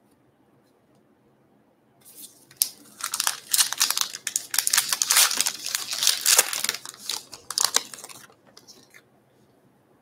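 A baseball card pack's wrapper being torn open and crinkled by hand: a burst of crackling and tearing that starts about two seconds in and lasts about six seconds, with a few last crinkles after it.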